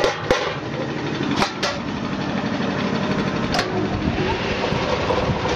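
Steady running of a french fries processing machine's electric motor, with a few sharp metal knocks as a stainless steel mesh basket of cut potato strips is handled against the machine.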